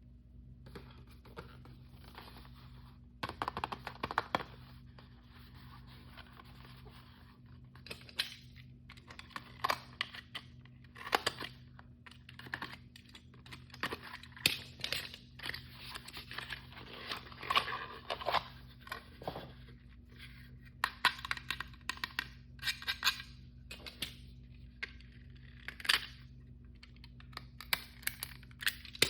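Hands opening toy blind-bag packaging: plastic crinkling and tearing in stretches of a few seconds, broken by many sharp clicks and taps of small plastic pieces, over a steady low hum.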